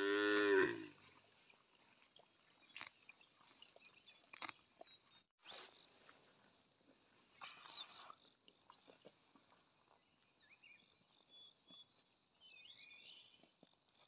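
A calf gives one short moo at the start, then grazes: soft scattered crunches and clicks of grass being torn and chewed. There is a brief rustle of leaves about halfway through and faint bird chirps near the end.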